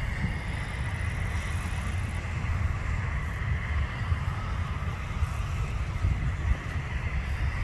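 Wind buffeting the microphone in a gusty low rumble, over the distant drone and steady high whine of a Boeing 747 freighter's engines on approach.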